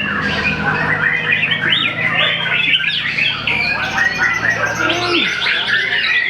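White-rumped shama (murai batu) singing without pause: a fast, varied stream of chirps, whistles and trills.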